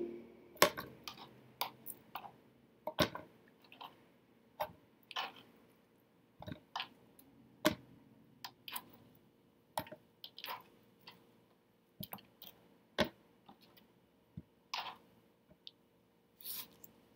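Pieces of cut cantaloupe picked off a cutting board and dropped into a plastic Tupperware container: irregular soft taps and clicks, about one or two a second.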